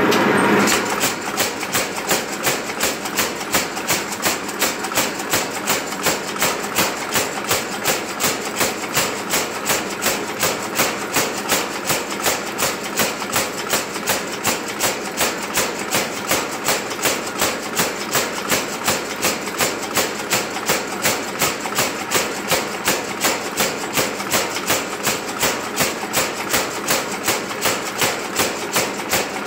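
Mechanical power hammer running in a steady rhythm, its ram striking a red-hot high-carbon steel bar at a little over two blows a second as the bar is drawn out.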